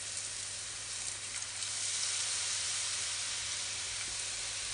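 Gram-flour batter drops (boondi) sizzling in hot oil in a deep pan, a steady hiss that grows louder about a second and a half in, as more batter is dropped through a perforated ladle into the oil.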